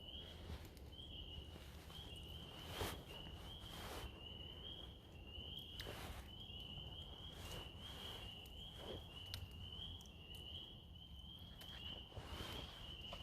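High-pitched chirping from a calling animal, repeating in short trills about twice a second, with a few faint rustles.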